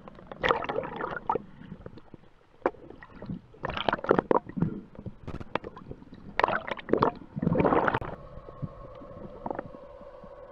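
Underwater handling noise heard through a camera housing: three bouts of rustling, knocking and gurgling water as a spearfisher grips and handles a freshly speared sea bass. A faint steady hum takes over near the end.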